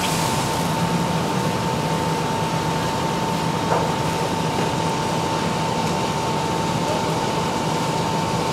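Fire engine's engine and pump running steadily while supplying a hose line, a constant drone with a steady whine above it.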